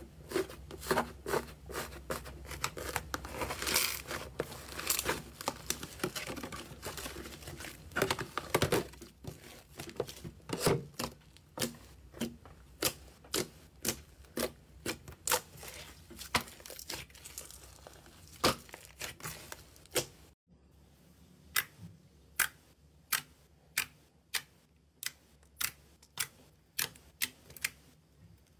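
Hands tearing, kneading and pressing slime: a run of sharp pops and clicks as trapped air pockets burst, with a crackling, tearing texture through the first part while a grainy crunchy slime is pulled apart. Later the pops come more sparsely and evenly.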